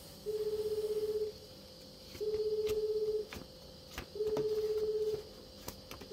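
Telephone ringing tone from a phone's speaker: a plain single-pitch beep about a second long, repeating three times with about a second of gap between, the line still ringing without being answered.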